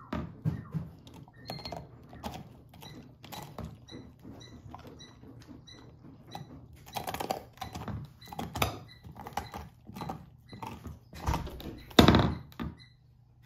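Great Pyrenees puppy gnawing a huge dog bone: an irregular run of sharp cracks, clicks and scrapes of teeth on bone. Near the end comes a louder knock as the bone is shifted on the wooden floor.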